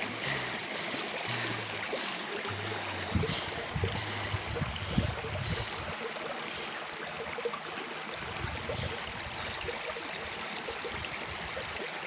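Small woodland creek flowing and spilling over a low riffle of rocks: a steady rushing babble of water, with a few soft low thumps in the first half.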